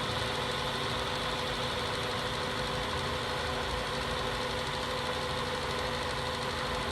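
Bridgeport J-head vertical milling machine running steadily in high range: the spindle motor and belt drive giving an even hum with a few steady tones.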